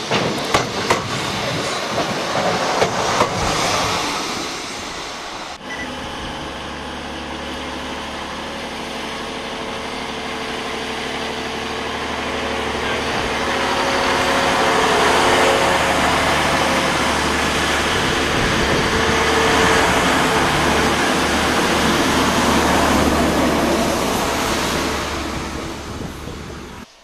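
A Class 153 diesel railcar running along the platform, its wheels clicking and knocking over the rails. After about five and a half seconds a Class 185 diesel multiple unit passes instead: a steady diesel engine drone with wheel and rail noise that grows loudest in the middle and cuts off abruptly at the end.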